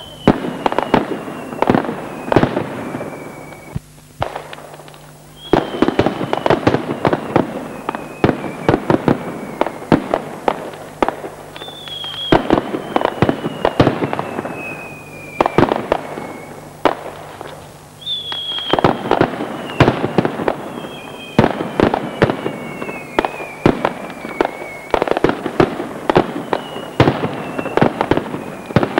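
Mascletà: a dense, loud barrage of masclets (ground firecrackers) exploding in rapid succession, coming in waves with brief lulls about four and seventeen seconds in. A high whistle that slides down in pitch over a few seconds rides over each new wave.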